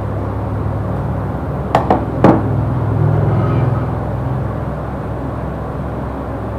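Three sharp clicks in quick succession about two seconds in, over a steady low hum.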